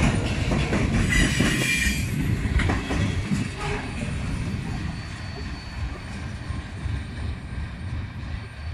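Freight train's centre-beam lumber flatcars rolling past at close range, steel wheels rumbling and clattering on the rails, with a brief wheel squeal about a second in. The rumble then fades steadily as the end of the train moves away.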